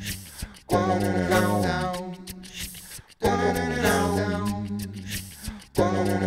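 A cappella music of layered vocals looped on a loop station: a sung phrase over a held low bass note that restarts about every two and a half seconds, with short clicks on top.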